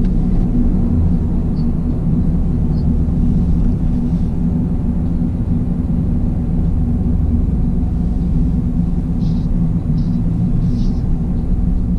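Toyota GR Yaris's turbocharged 1.6-litre three-cylinder engine running at a steady speed on the move, a constant low drone mixed with road noise.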